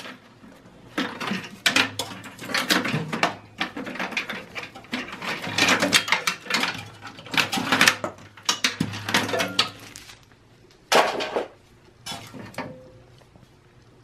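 SATA cables and their plastic connectors being unplugged and pulled out of a Dell PowerEdge T310 server's steel chassis: a run of irregular clicks, rattles and rustles, then two sharper knocks near the end.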